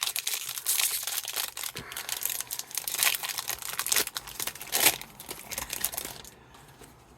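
Foil wrapper of a hockey card pack crinkling and tearing as it is opened. The crinkling stops about six seconds in.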